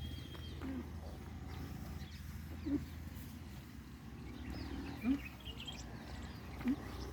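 Short, low animal calls, four of them about two seconds apart, each rising briefly in pitch, with faint bird chirps in the background.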